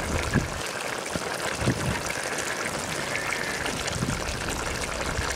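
Duck curry simmering in a steel pot over a wood fire: a steady bubbling hiss, with a few soft knocks.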